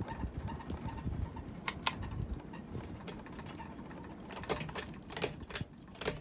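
Hunter Creighton ceiling fan running with a low rumble, with a few scattered light clicks and rattles, typical of its loose light kit and blades.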